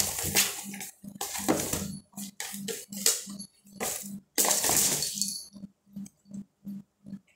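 Cardboard box rustling and scraping on a tiled floor as a cat tumbles it and moves in and out of it, in uneven noisy bursts that thin out after the first few seconds. A faint low pulse repeats about three times a second underneath.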